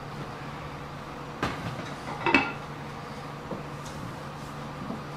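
Kitchen background with a steady low hum and two light clinks of tableware, about one and a half and two and a half seconds in.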